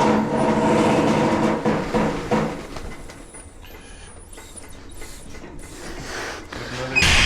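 Manual tire changer working a tire onto its rim. A steady humming drone runs for the first couple of seconds, scattered quieter working noises follow, and a loud hiss starts near the end.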